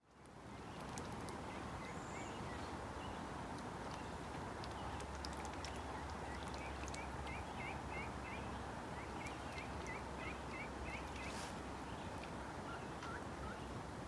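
A bird calling in short rapid chirps, two quick runs of about five chirps each near the middle, with a few single chirps around them, over a soft steady outdoor background.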